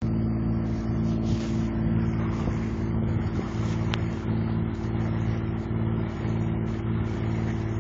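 Boat engine running steadily at an even, unchanging speed, a constant low hum.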